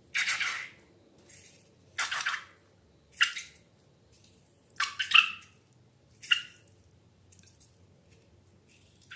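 Thick, wet slime squelching and popping in about five separate short squishes, a few with a brief squeaky edge, then going quiet for the last couple of seconds.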